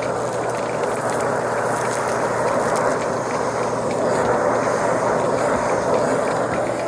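Vacuum cleaner running steadily over carpet, a constant motor drone with scattered crunchy crackles of debris being sucked up.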